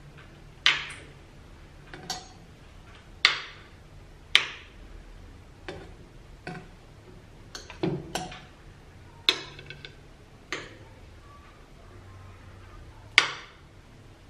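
Metal fork clinking against a ceramic plate and the cup of a small portable blender as cut fruit is scooped in: about a dozen short, sharp clinks at irregular intervals, a few louder than the rest.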